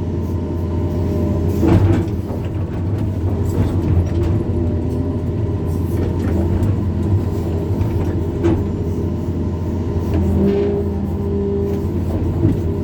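Hydraulic excavator's diesel engine running steadily under working load, with a few short knocks as the bucket works the soil.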